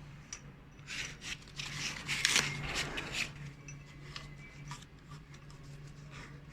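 Hands working foam rubber and plastic parts: irregular rustling, rubbing and scraping, loudest about two to three seconds in.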